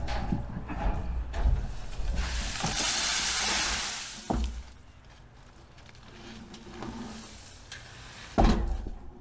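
Wheelbarrow rumbling and knocking as it is rolled up onto a wooden utility trailer, then a load of dry leaves and compost sliding out onto the trailer bed in a long rustling hiss, with a sharp knock just after. Quieter scraping follows, and a loud thump comes near the end.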